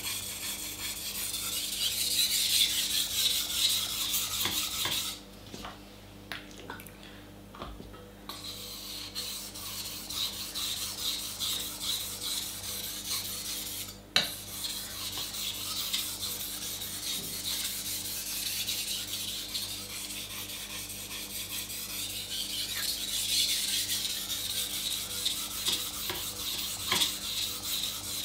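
Steel kitchen knife blade stroked back and forth on a wet 1000-grit water stone, a repeated rasping scrape as the second side of the edge is ground to raise a burr. The strokes pause for about three seconds around five seconds in, and a single sharp click sounds midway.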